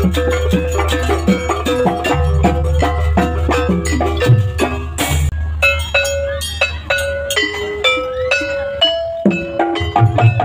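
Music: fast, even strokes of struck bell-like percussion over a steady bass, with a cymbal-like crash about five seconds in, after which the bell notes come slower and ring longer.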